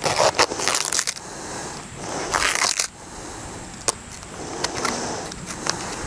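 Duct tape being pulled off the roll in several crackling rasps and wrapped around a foam pipe-insulation sleeve, with sharp handling clicks and scrapes between the pulls.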